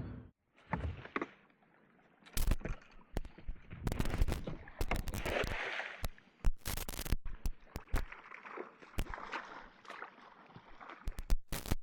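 Irregular sharp knocks and clicks of fishing gear being handled on a kayak, with splashy water noise in between.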